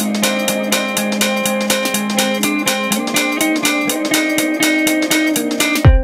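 Background music: plucked guitar over a drum kit with a steady beat, and a heavy kick drum coming in near the end.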